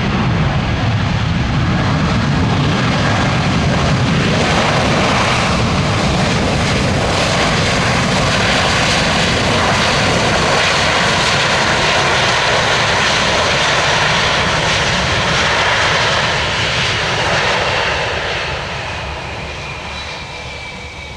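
Airbus A320-200 airliner's jet engines running loud as it lands and rolls out, easing off near the end with a falling whine.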